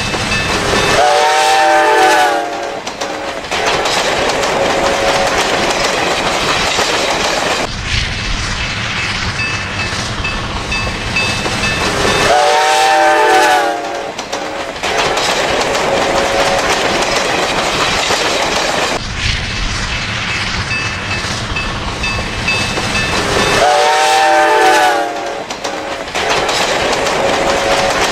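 Steam locomotive's whistle blowing three times, about eleven seconds apart, each blast lasting a second or so with its pitch sagging at the end. Between the blasts the train's steady rumble and wheel clatter on the rails goes on.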